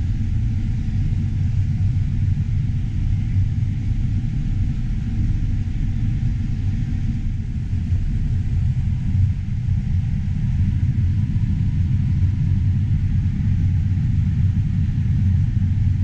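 John Deere S670 combine running steadily while harvesting corn with an 8-row corn head, heard from inside the cab as a low, even rumble.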